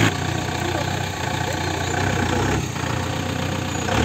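Mahindra off-road jeep's engine running steadily at low revs, dipping briefly about two and a half seconds in.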